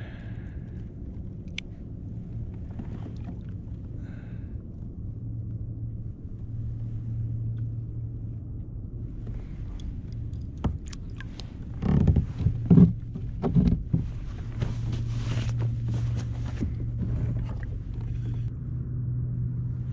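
Fish being unhooked and handled aboard a plastic kayak, over a steady low hum: clicks and splashy rustling from about ten seconds in, with a cluster of heavy knocks and thumps against the hull around twelve to fourteen seconds.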